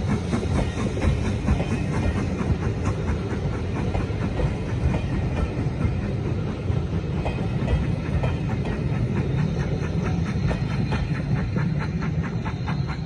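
Passenger coaches of a steam-hauled train rolling past with a heavy, steady rumble, their wheels clicking rapidly over the rail joints.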